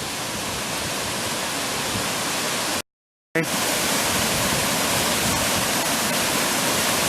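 Waterfall in full flow: a steady, dense rush of falling water. It cuts out completely for about half a second roughly three seconds in, then resumes slightly louder.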